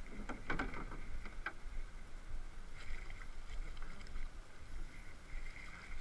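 River water rushing and lapping against a drifting boat's hull, with a steady low rumble of wind on the microphone. A few short, sharp sounds come in the first second and a half.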